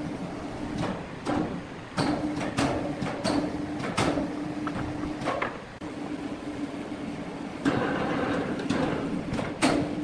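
An electric overhead hoist hums steadily as it lifts a heavy redwood slab hung in lifting straps. Repeated knocks and clunks of the wood and rigging run through it, getting louder about three-quarters of the way in.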